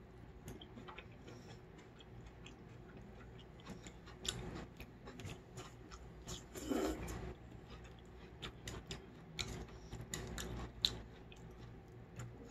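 Close-miked eating of cold naengmyeon noodles: irregular soft mouth clicks, smacks and chewing as noodles and vegetables are bitten and slurped in, with a slightly louder mouth sound just under seven seconds in.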